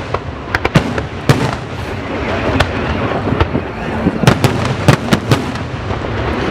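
Aerial fireworks going off in rapid, irregular succession: many sharp bangs over a continuous crackle.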